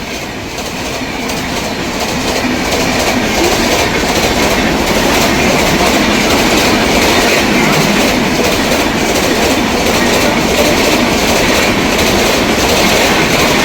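Train passing through a station at speed without stopping, its wheels clattering over the rail joints. The noise builds over the first few seconds, then stays loud and steady.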